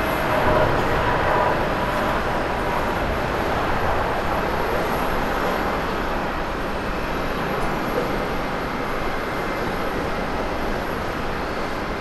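Jet engines of a Boeing 787 at takeoff thrust as it lifts off and climbs away: a steady, even rushing noise that eases off slightly toward the end.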